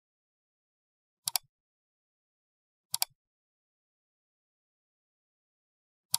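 Three computer mouse clicks, each a quick sharp double tick, over otherwise dead silence; the last comes near the end.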